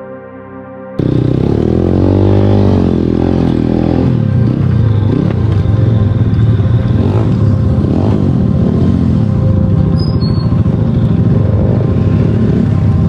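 A vehicle engine, running loudly with its pitch rising and falling, cuts in abruptly about a second in as background music stops.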